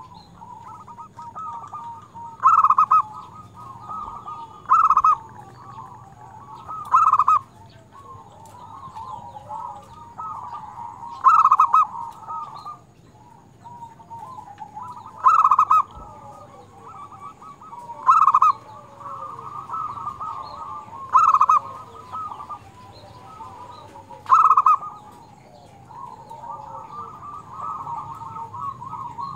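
Zebra dove (perkutut) cooing: a loud, short, rapid-fire coo repeated eight times, about every three seconds, over steady softer bird calling.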